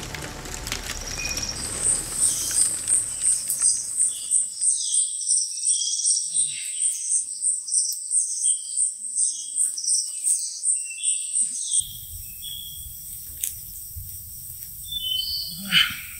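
Night insect chorus: a high cricket-like chirp pulsing about three times a second, with shorter bird-like chirps among it. The chirping cuts off abruptly about twelve seconds in, leaving a quieter hiss with a few clicks and a brief call near the end.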